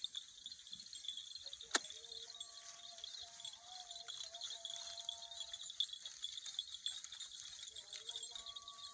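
Quiet outdoor farmyard background: a steady high hiss, faint drawn-out calls in the distance, and one sharp click about two seconds in.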